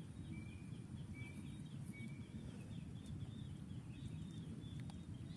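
Faint outdoor ambience: a low steady rumble with a bird chirping in a fast run of short, high notes, about three or four a second.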